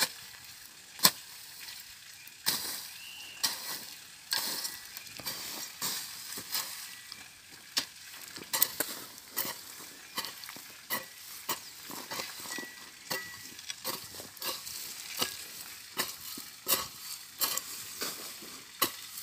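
Broad-bladed hoe chopping and scraping through grass and soil, a sharp strike every second or so with dry rustling between.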